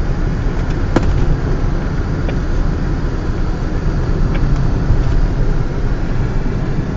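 In-cabin noise of a 1989 BMW 735i (E32) under way: a steady low rumble of its straight-six engine and tyres on the road, with one sharp click about a second in.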